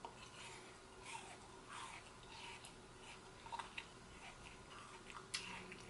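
Faint chewing and mouth sounds of popping boba being eaten off a spoon, with a few small sharp clicks scattered through. It is quiet because the microphone failed to record the eating sounds properly.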